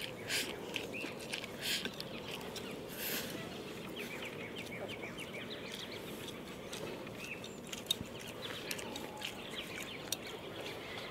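Chickens clucking softly in the background, with a few short eating sounds from a rice bowl and chopsticks in the first few seconds.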